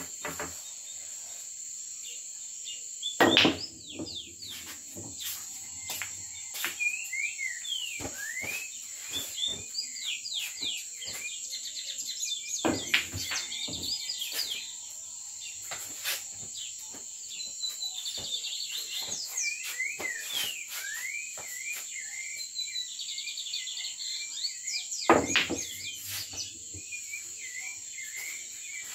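Three pool shots on a sinuca table, about 3 s in, about 13 s in and near the end: each is a sharp clack of the cue striking the ball and the balls colliding. Under them run a steady high insect chirring and many short bird-like chirps.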